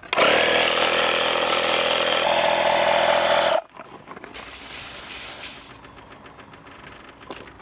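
Portable electric tire inflator's compressor running steadily while pumping up a soft tractor tire, then cutting off suddenly about three and a half seconds in. About a second later comes a short hiss of air as the hose is taken off the tire's valve stem.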